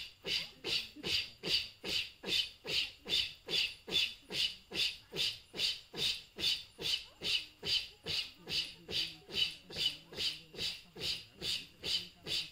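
Goan fugdi dancers making a rhythmic chorus of breathy 'foo' or 'shoo' sounds with their mouths in unison, about two and a half breaths a second, keeping time for the circle dance.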